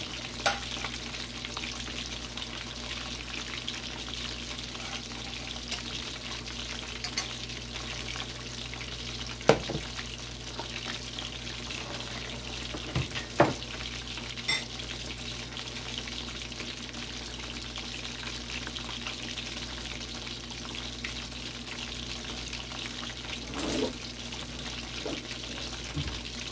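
Chicken leg quarters frying in hot oil in a pan at medium heat: a steady sizzle, with a few sharp pops about half a second, ten, thirteen, fifteen and twenty-four seconds in.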